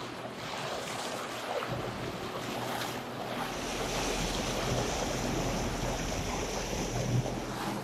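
Bow wave of a sailboat motoring through a calm sea: water rushing and splashing against the hull, with some wind on the microphone.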